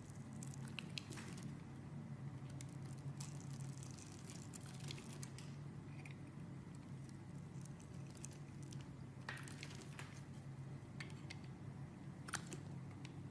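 A knife cutting into a bar of soap, with scattered crisp clicks and scrapes over a steady low hum.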